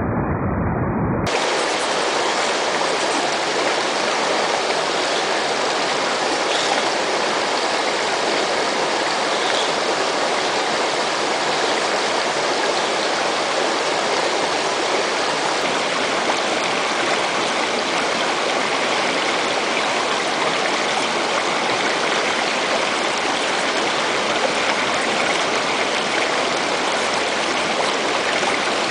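Steady rush of a river flowing over rocks, an even hiss of running water. A brief muffled low sound cuts off about a second in, where the water sound starts.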